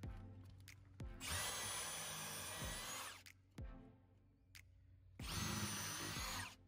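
Milwaukee brushless cordless drill boring pilot holes into wooden deck boards: two runs of the spinning bit, the first about two seconds long, the second about a second and a half, with a high whine over the noise of the cutting. Background music plays faintly underneath.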